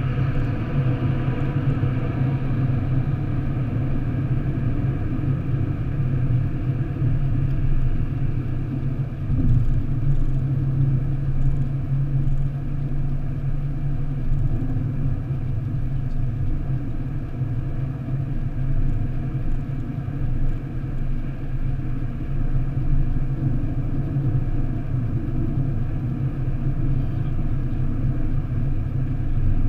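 Steady road and engine rumble heard inside a car cabin at motorway speed. At the start a rushing noise from passing a lorry fades away, and there is one brief thump about nine seconds in.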